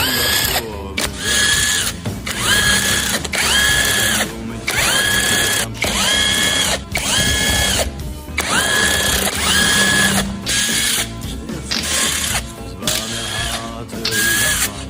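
Cordless power driver spinning fasteners out during an engine teardown, in a string of short runs about a second long, each whine rising in pitch and then holding before it stops.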